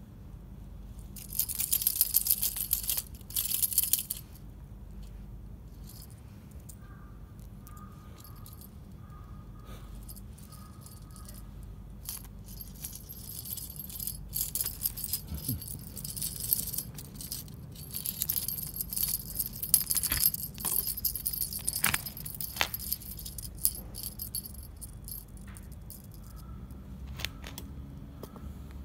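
Cat wand toy on a string jingling and rattling in spells as cats bat and bite at it: a short burst a couple of seconds in, then a longer, busier stretch through the middle.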